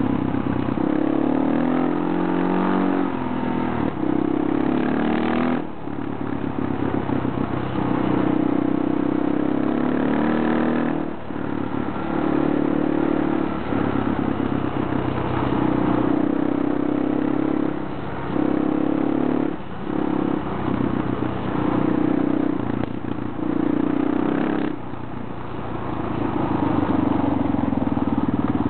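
Motorcycle engine running under way on a gravel road, with wind noise over it. The engine note climbs at the start, then breaks off briefly four or five times and picks up again.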